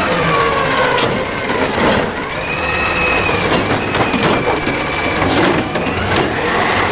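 Garbage truck sounds: a truck engine running, with a few short hisses like air brakes.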